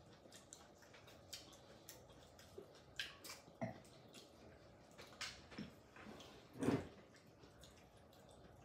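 Quiet eating sounds at a table: small clicks of chopsticks picking cherries from a bowl, mixed with chewing and lip smacks. One louder knock comes about two-thirds of the way through.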